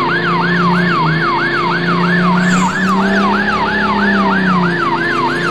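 Ambulance siren sound effect: a fast siren sweeping up and down about three times a second, steady throughout, over a low steady hum.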